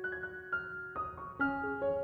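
Gentle background piano music: a slow melody of sustained notes, a new note struck about every half second.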